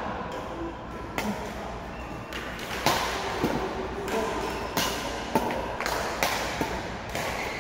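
Badminton rally: a series of sharp racket strikes on a shuttlecock, irregular and about a second apart, mixed with footfalls on the court floor.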